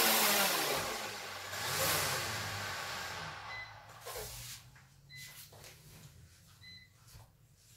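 Small quadcopter drone's motors and propellers whirring as it comes down and lands, spinning down with falling pitch and dying away over about four seconds. After that a short high beep repeats about every second and a half, with light knocks and rustling.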